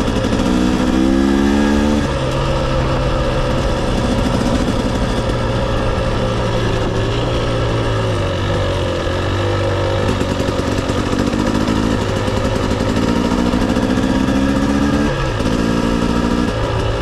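Dirt bike engine running under way, its revs climbing and dropping back a few times, with wind rushing past the microphone.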